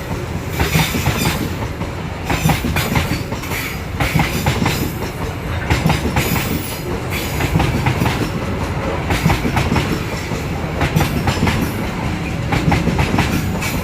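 Freight wagons of a coal train rolling by, their wheels clacking over the rail joints again and again above a steady low rumble.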